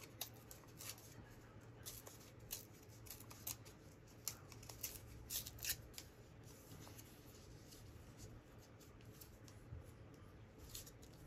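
Faint rustling and crinkling of paper scraps being handled by hand, with short crackles scattered mostly through the first six seconds and sparser after.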